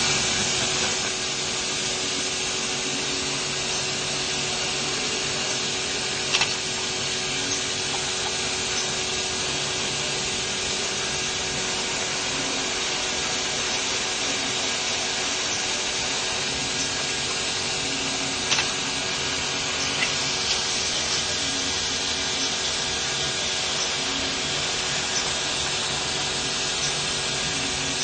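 A motor-driven machine running steadily with a loud hiss and a constant hum, switched on at the very start, with a few faint clicks along the way.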